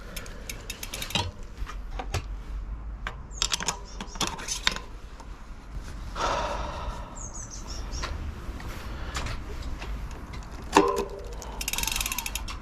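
Scattered clicks, knocks and rattles of a bicycle wheel being handled and refitted into the frame, with a louder knock just before the end and a quick run of fine clicks near the end.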